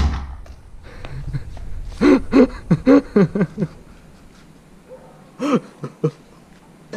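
A homemade plastic-pipe combustion potato cannon fires once with a sharp bang and a low boom trailing it, its hairspray charge set off by a spark. A man's voice follows about two seconds later in a few short wordless sounds, and once more near the end.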